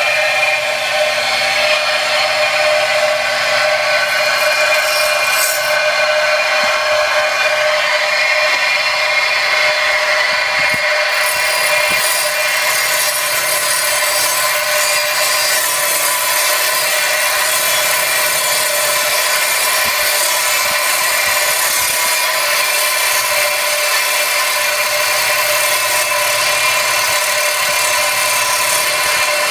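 A tile saw cutting through a fossilized lightning whelk shell. It is a steady, loud whine with a grinding hiss as the blade is pushed slowly through the stone-filled shell.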